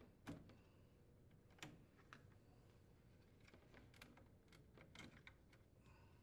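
Faint, scattered small clicks and taps of plastic wire connectors being unlatched and pulled off a microwave's main control board.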